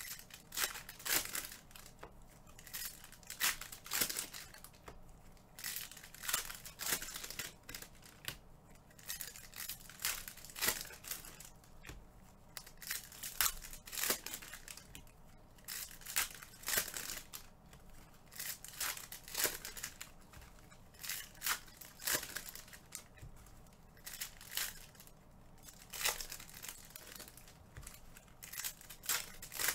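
Foil wrappers of trading card packs being torn open and crinkled by hand, one after another, in a steady string of short ripping and crackling sounds.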